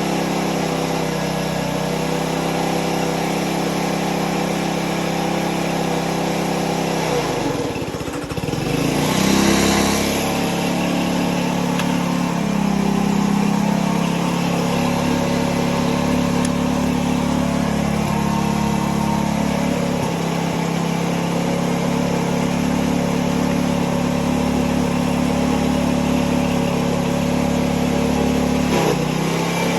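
Gas engine of a 2.5 gallon-per-minute pressure washer running steadily. About seven seconds in, its pitch sags and then climbs back with a short hiss, and it dips briefly again near the end.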